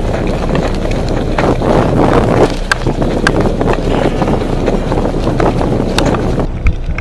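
Wind buffeting a body-worn camera's microphone as an airsoft player runs, with scattered sharp clicks and knocks of footsteps and gear rattling. The wind noise cuts off suddenly near the end.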